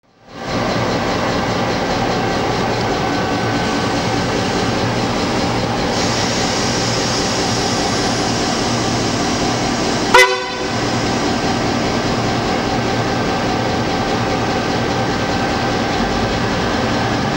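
Victorian Railways S class diesel locomotive's two-stroke EMD engine running steadily as the locomotive creeps forward at low speed. About ten seconds in, a single brief, loud blip of the horn sounds.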